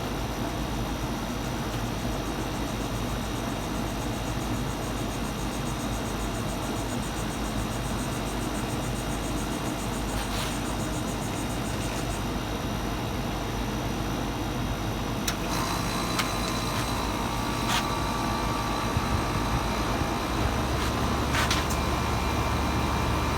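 2022 Grandair 5-ton air conditioner running with a steady mechanical hum as it starts up in cool mode. About fifteen seconds in, a new whine joins with a few clicks, and a deeper hum builds near the end.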